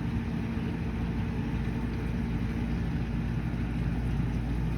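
Whirlpool GU980SCGQ2 dishwasher's drain pump running with a steady hum as it pumps the water out, the sound of a drain that is working again after its blockage was cleared.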